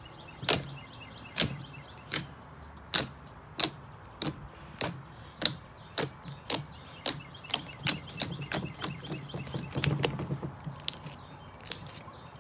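A huge batch of slime being poked and pressed by fingers, each poke giving a sharp click or pop as air trapped in the slime bursts. The pokes come about one or two a second, quicken to two or three a second in the middle, and thin out near the end.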